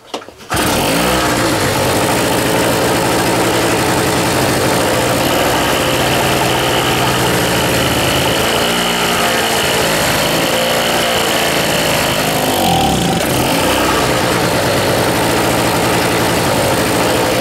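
SIP Medusa T951 generator's small two-stroke engine catches on a pull-start about half a second in and runs on steadily. It runs without its air filter, and its speed dips and recovers a couple of times.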